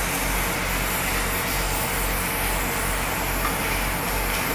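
Oxy-acetylene gas-welding torch flame hissing steadily while brazing with brass filler rod, over a steady low hum.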